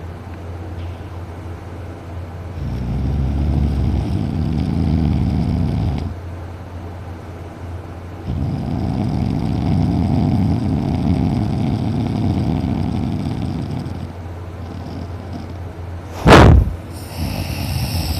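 Loud, deep snoring: two long snores of several seconds each, with quieter breathing between them, then a sudden, very loud short burst near the end.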